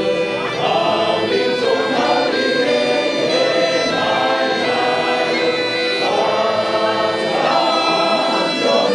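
A roomful of people singing a song together in chorus, accompanied by bagpipes with a steady drone.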